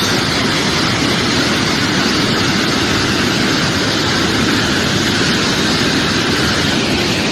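Heavy hailstorm: large hailstones pelting down in a dense, steady hiss that starts abruptly.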